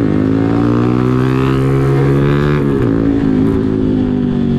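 Motorcycle engine running steadily while riding in traffic. Its pitch drops briefly and climbs back twice, once at the start and once a little past halfway.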